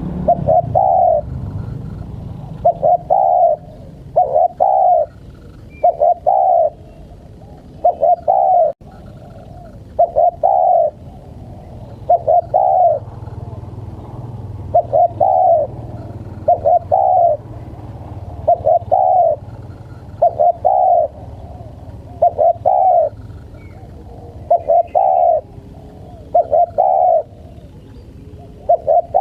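Spotted dove (tekukur) cooing over and over, loud and close, in short phrases of two coo notes repeated about every two seconds.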